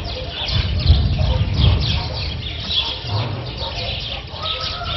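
Birds chirping and chickens in the background, over an uneven low rumble.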